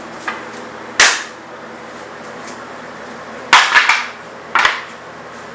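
Sharp knocks of pallet wood: one loud knock about a second in, a quick run of three around three and a half seconds, and one more near the end.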